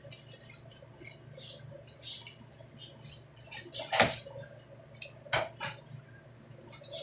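Close-up eating sounds: a tuna avocado sandwich being chewed and bitten, a run of short crunchy crackles with two sharper clicks around the middle. A steady low hum sits underneath.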